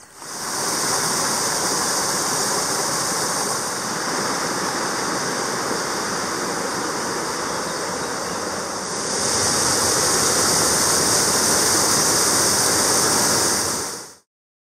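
Running water: a steady rushing hiss of a stream, which gets louder and brighter about nine seconds in and then cuts off suddenly near the end.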